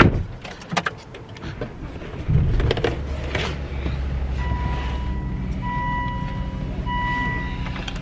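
A car engine starts a little over two seconds in and settles into a steady idle, with clicks and rustling from a seat belt being pulled across. From about halfway, a dashboard warning chime sounds three long, evenly spaced beeps.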